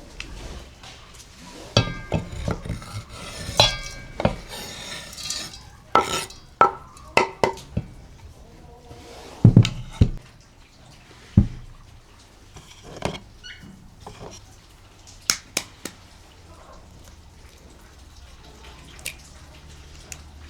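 Cooking utensils and pots clinking and knocking at irregular intervals, busier in the first half and sparser later.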